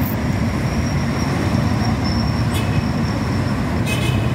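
Steady road traffic noise from a busy city street, a dense low rumble of passing cars, with a brief high squeak near the end.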